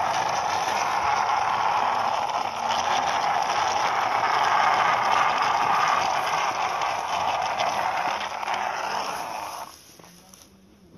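Plastic toy excavator's crawler tracks scraping and rolling along concrete as it is pushed by hand, a steady loud rasp that stops abruptly near the end.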